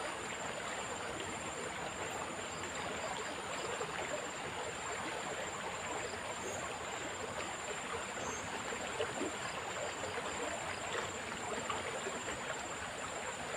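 Fast-flowing river water rushing steadily over rocks, a continuous even roar with no break.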